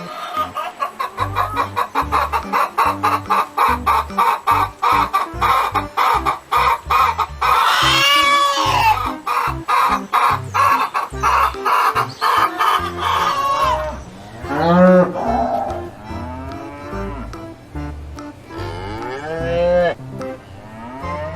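Farmyard animal calls over background music. Rapid, evenly repeated clucking-like calls fill roughly the first two-thirds. After that come several longer calls that rise and fall, which may be cattle mooing.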